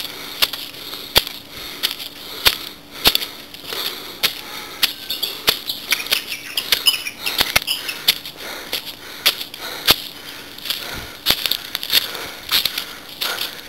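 Footsteps on a forest path over stone and dry leaf litter: irregular crunches, rustles and sharp clicks several times a second as someone walks.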